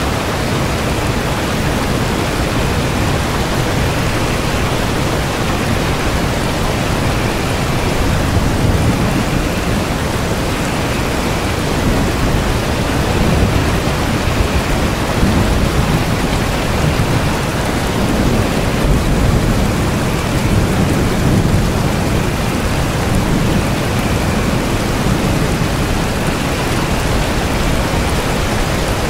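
Steady heavy rain, a dense even hiss, with low rumbles of thunder that swell and fade several times.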